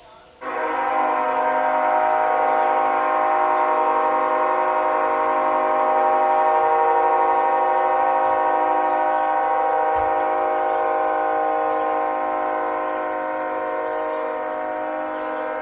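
Nathan Airchime K5HL five-chime locomotive air horn sounding one long held blast, its chord of several notes starting about half a second in and held steady, easing off slightly near the end.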